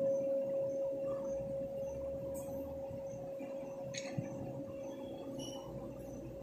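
A large hanging temple bell ringing on after a single strike, one steady hum fading slowly away. A faint click about four seconds in.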